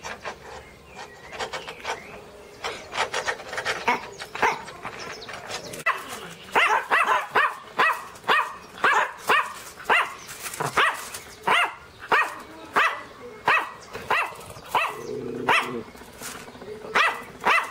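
Miniature pinscher barking in a steady run of short barks, about two a second, starting about six seconds in, with quieter scattered yaps before it and a pause before two last barks near the end.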